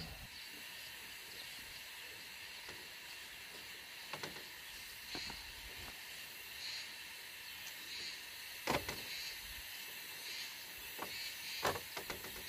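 Occasional knocks and scrapes of a small hand tool working garden soil, the loudest about nine seconds in and again near the end, over a steady high hiss of outdoor background.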